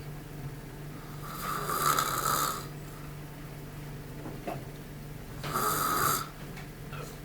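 A man snoring: two long snores about four seconds apart, over a steady low hum.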